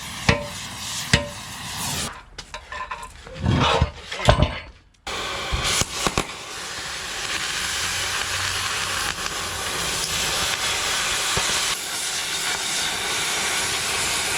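A few sharp metal knocks, then from about five seconds in the steady hiss of a gas cutting torch heating the seized pin boss so the pin can be driven out.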